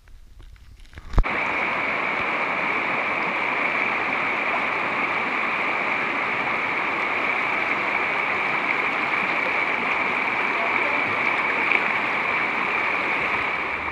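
Shallow stream rushing and splashing over rocks in a steady, loud wash of water noise. It comes in suddenly with a click about a second in.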